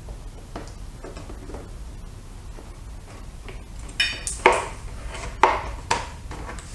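A Phillips screwdriver and small plastic push screws clicking and clinking as they are worked loose and handled. Faint ticks come first, then a handful of sharp clinks in the second half.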